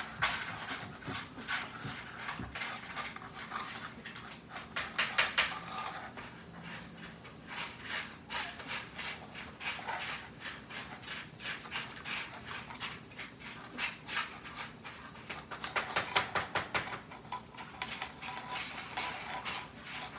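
Several cats eating canned pâté cat food: rapid, irregular wet chewing, lapping and smacking clicks, busiest about five seconds in and again near the end.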